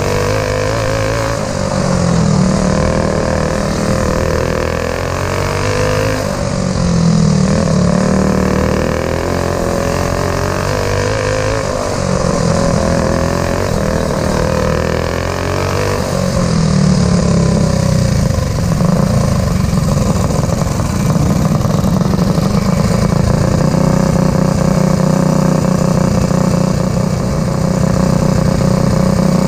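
Racing kart engine at full race speed, heard from onboard. Its pitch drops and climbs back several times as the kart goes through the turns, then holds steady near the end.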